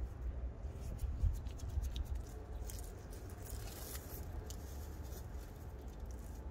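Gloved hand working crumbly soil and rustling dry straw mulch by a metal pail: a run of small crackles and scratchy clicks over a low rumble.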